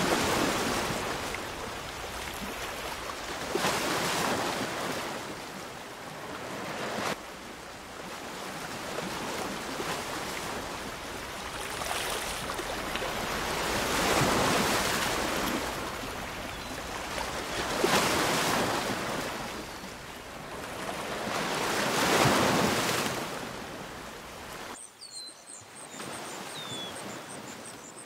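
Ocean surf: waves breaking and washing in, swelling and ebbing every few seconds. Near the end the surf drops away and birds chirp with short falling calls.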